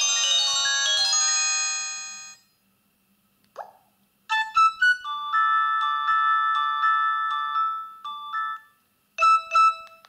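Nokia 8210 4G's built-in message and calendar alert tones previewing through the phone's small speaker as the tone list is scrolled. First a cluster of bell-like chiming notes fades out about two seconds in. After a soft click, a few quick notes lead into a longer electronic melody of repeated held notes lasting about three seconds, and near the end come two short beeps.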